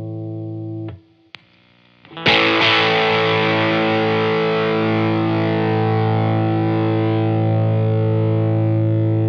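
Electric guitar played through an optical compressor pedal. A ringing chord stops about a second in, two small clicks come in the short gap, and a new chord is strummed a little after two seconds and rings on at an even level: the compressor adding long sustain.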